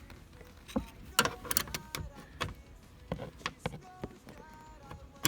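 Irregular sharp clicks and knocks of car interior trim and seat-belt hardware being handled and fitted, with a cluster of quick clicks between about one and two seconds in.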